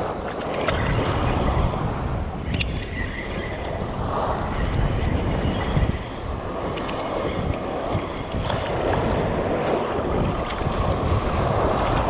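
Sea water sloshing and lapping right at the microphone, surging and ebbing every second or two, with wind buffeting the microphone.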